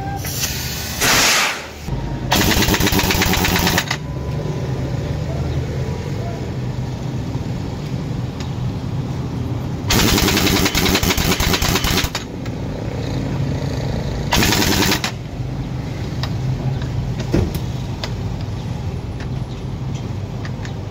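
Pneumatic air tools rattling in about five bursts of one to two seconds, over a steady low engine drone: an air hammer on a dump-truck tire's bead and an impact wrench on the wheel's lug nuts.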